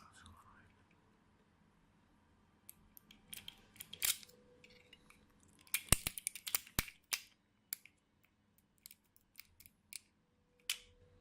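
Sparse, small sharp metallic clicks and scrapes of a lock pick and tension tool working an ABUS Element 290 disc lock, with a cluster of clicks about four seconds in and another around six seconds in.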